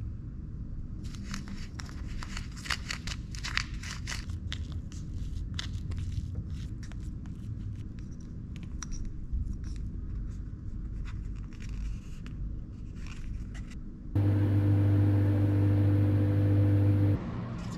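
Small plastic spoon stirring and scraping powdered candy dough in a plastic tray, a quick run of small clicks and scrapes. About fourteen seconds in, a microwave oven starts humming steadily, louder than the stirring, and cuts off about three seconds later.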